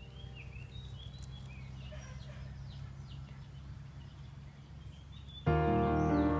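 Birds chirping faintly in short calls over a low steady hum, then background music cuts in abruptly and much louder near the end.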